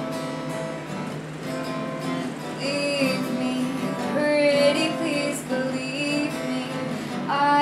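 Acoustic guitar playing a song accompaniment, with a woman's voice singing wordless held notes over it from about three seconds in.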